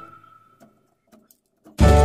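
Background music with a whistle-like melody fades out, leaving a gap of near silence with a few faint ticks. The music starts again near the end.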